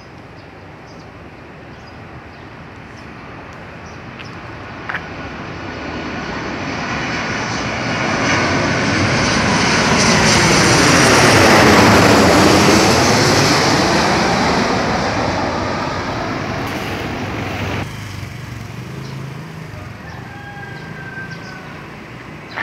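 Twin-engine jet airliner on landing approach passing low overhead: the engine noise builds for about ten seconds, peaks as it passes directly above, then fades away.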